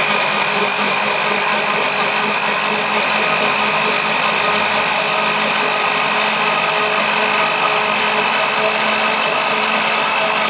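Electric countertop blender running steadily at speed, puréeing peeled ambarella (kedondong) fruit with ice water: a loud, even motor whine over a churning noise.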